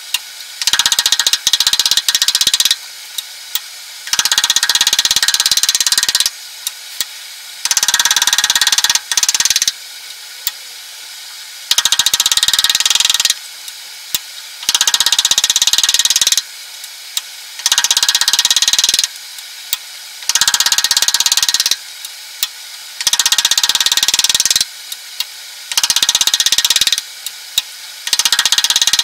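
A carving tool gouging flutes along a cherry-wood citrus reamer: about ten cutting strokes, each a second or two of scraping, with short pauses between them.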